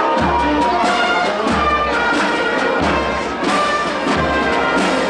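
Brass band playing a tune in the street, with sustained horn notes over a low bass beat that comes about every second and a half.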